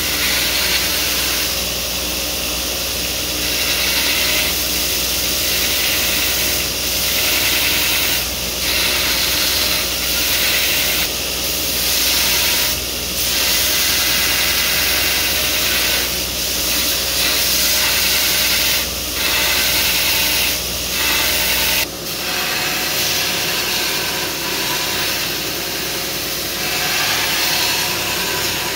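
Belt grinder running while 1084 carbon steel knife blanks are pressed against the belt and ground to shape: a loud, steady hissing grind that dips briefly every couple of seconds as the blade is lifted off and set back on the belt.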